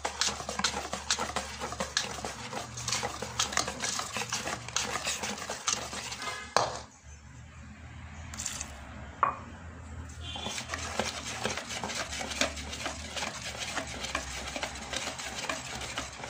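Wire balloon whisk beating cake batter in a stainless steel bowl, its wires rapidly clicking and scraping against the metal. About halfway through the beating stops for a few seconds, with a sharp knock as it stops, then starts again.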